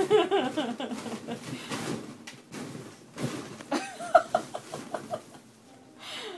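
A toddler's high-pitched vocalizing: squeals right at the start and a quick run of short, repeated high squeals about four seconds in. A few soft knocks come from the balloons being batted about.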